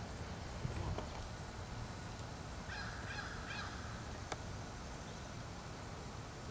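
A bird calling about four times in quick succession about halfway through, over a steady low outdoor rumble. A faint click follows a little later.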